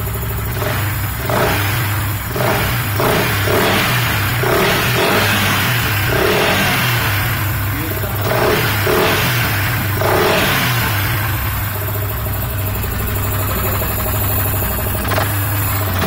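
Yamaha R15 V3's 155 cc single-cylinder engine, running with its air filter removed, blipped repeatedly on the throttle over the first ten seconds or so, then settling back to a steady idle.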